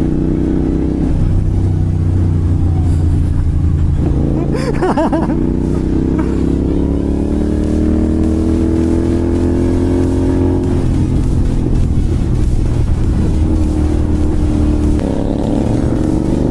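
Royal Enfield Continental GT 650's parallel-twin engine with a slip-on aftermarket exhaust, pulling hard under throttle through the gears. The pitch climbs steadily, then drops at gear changes about four, ten and a half and fifteen seconds in.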